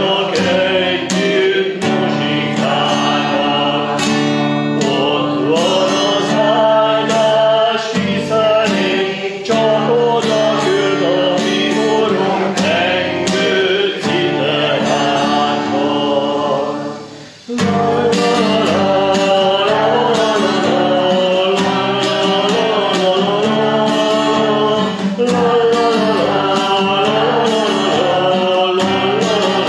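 A hymn sung to strummed guitar accompaniment. The music breaks off for a moment about seventeen seconds in, then carries on.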